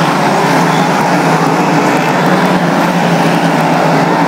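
Several dirt-track speedway race cars' engines running together as they lap the oval, a loud, steady engine noise.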